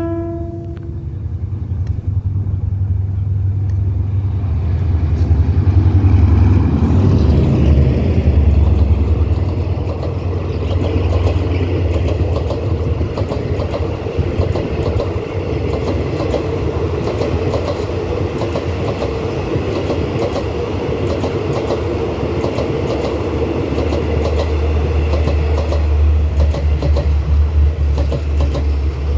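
Passenger train hauled by the Hitachi 4511 diesel-electric locomotive passing close at speed. The last of a horn note, sounded as a warning to track workers, ends about a second in. The engine's heavy low rumble follows, and the coaches' wheels clack over the rail joints as they run by.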